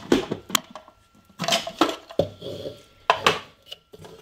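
A few separate plastic knocks and clattering scrapes as a food processor's lid is handled and taken off its bowl.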